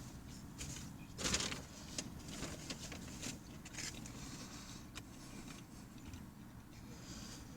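Quiet chewing and mouth sounds from a bite of a maple bacon chicken croissant sandwich, with soft crinkles of its wrapper and a louder rustle about a second in.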